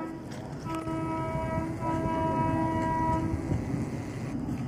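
Horn of an approaching Indian Railways express train's locomotive sounding twice, a short blast and then a longer one, over the low rumble of the oncoming train.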